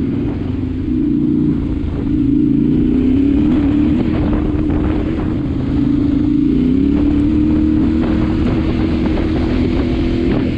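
Yamaha Ténéré 700's parallel-twin engine running as the bike rides along a dirt track, its note rising and falling a little with the throttle.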